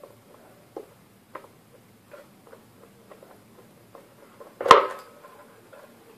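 Hand screwdriver driving the mounting screws of a subwoofer speaker into its wooden cabinet: small scattered clicks and scrapes, with one sharp metallic clink that rings briefly about four and a half seconds in.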